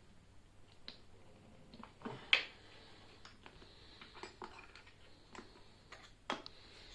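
Tyre levers clicking and knocking against an e-scooter wheel rim and tyre as the tyre bead is levered off, in scattered sharp clicks with two louder knocks, one about two seconds in and one near the end.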